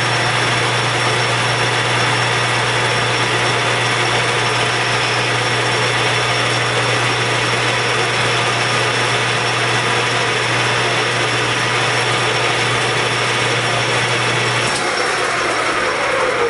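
Metal lathe running steadily while a high-speed steel tool takes a light pass on a neck-turning mandrel: a constant hum with a dense hiss over it. Near the end the hum and the hiss drop back.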